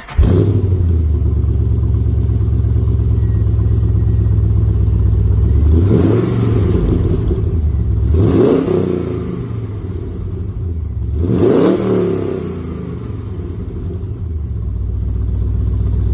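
Holden Commodore engine idling through its newly fitted mufflers, blipped three times, each rev rising and falling in pitch before settling back to a steady idle.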